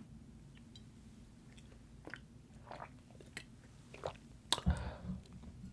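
Close-miked mouth sounds of a man drinking: swallows and wet mouth clicks after a swig of Malibu coconut rum, then a sip of juice from a carton. A heavy low thump about four and a half seconds in, as the bottle is set down on the wooden table.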